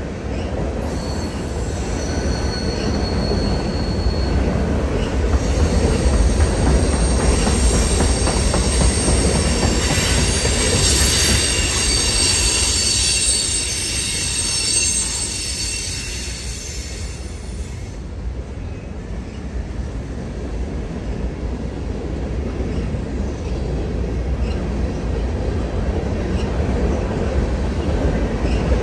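Loaded freight train rolling past, a steady low rumble of its cars with wheel flanges squealing in several high, held tones. The squeal begins about a second in, is loudest in the first half and stops about two-thirds of the way through, leaving the rumble, which builds again near the end.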